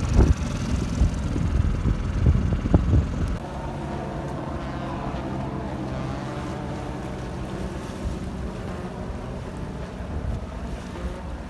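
Wind buffeting the microphone aboard a small sailboat under way, gusty and loudest for the first three seconds, then settling into a quieter, steady rush with a faint hum.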